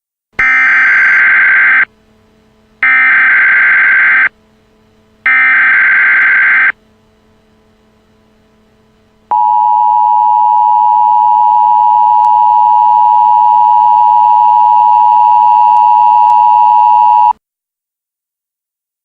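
Emergency Alert System alert header: three bursts of digital SAME data tones, each about a second and a half long. After a short gap comes the EAS two-tone attention signal, a loud steady tone held for about eight seconds before it cuts off.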